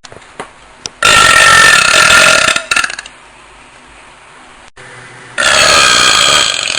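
Two long, loud burps from a person forcing them out after gulping a drink. Each lasts about a second and a half, with a pause of about three seconds between them.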